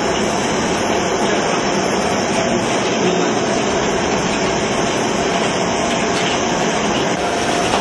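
Corn popping steadily inside a covered stainless-steel popcorn kettle with caramel sugar, a dense crackle over the steady rush of the machine's burner and stirrer. Popping at this full pace is the sign that the batch is nearly done.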